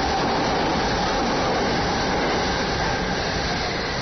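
JR East 253 series electric train pulling out of a station platform, a steady running noise from the train.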